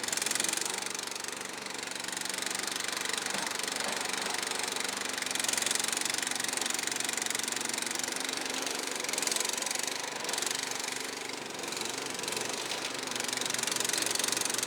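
Kohler engine of a Struck Magnatrac Junior mini bulldozer running steadily, with a hissy noise above it that swells and fades a few times.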